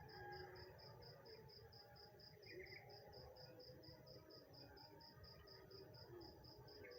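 Faint insect chirping in a fast, even pulse of about four high chirps a second, over a low background rumble.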